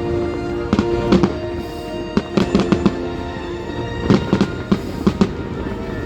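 Fireworks bursting in repeated sharp bangs that come in clusters, over music playing throughout.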